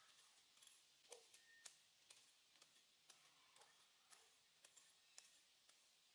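Faint, irregular clicks and scrapes of a small hand tool digging into soil among dry leaves, over a quiet background hiss.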